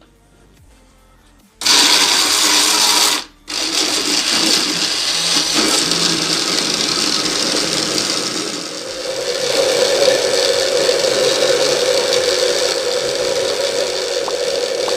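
Countertop blender running, blending frozen banana slices with a little milk. It starts about a second and a half in, stops for a moment, then runs on steadily, and a steady motor hum comes through from about halfway.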